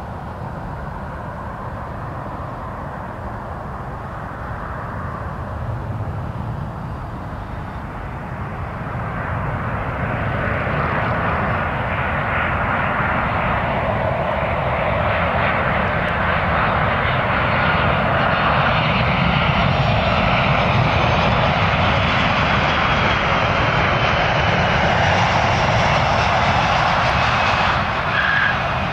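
Boeing 737-800's CFM56-7B jet engines on final approach, a steady rumble with a higher whine that grows louder from about eight seconds in as the airliner comes closer.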